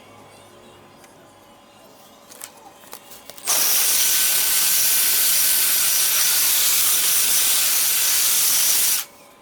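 A loud, steady hiss that starts suddenly about three and a half seconds in, after a few light clicks, and cuts off abruptly about five and a half seconds later.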